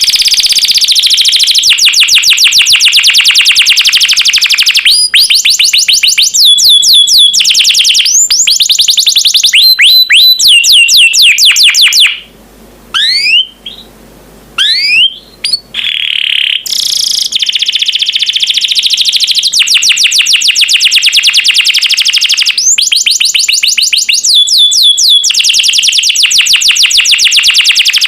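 Domestic canary singing a long song of very fast trills, each note repeated many times a second. About halfway through there is a short break of separate rising whistled sweeps, then the rapid trilling resumes.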